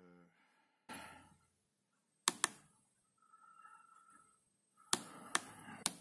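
Small tactile push buttons on an SCO2 handheld digital oscilloscope clicking as they are pressed to step through its settings menus: a quick pair of clicks about two seconds in, then a few more near the end.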